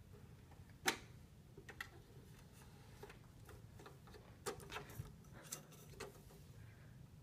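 Irregular plastic clicks and taps from a small child's hand working the open lid and CD compartment of a portable CD player, the sharpest click about a second in and a quick cluster of them later on.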